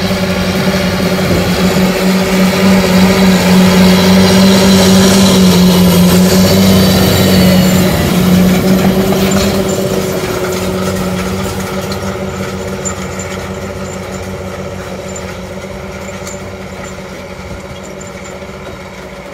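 John Deere 8430 tractor's 9.0 L six-cylinder turbodiesel running steadily at full throttle, hard-pulling a deep subsoiler through the ground. It grows louder as the tractor passes close, then fades steadily as it moves away.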